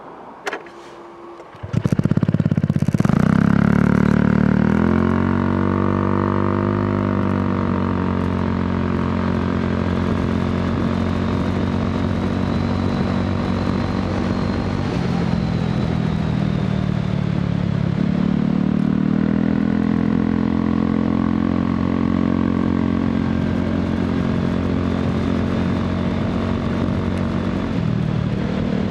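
Honda PCX scooter's single-cylinder engine, fitted with an aftermarket muffler, catching about two seconds in and revving up, then running as the scooter rides along, its pitch dipping and rising with the throttle.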